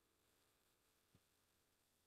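Near silence: faint room tone, with one brief faint knock about a second in.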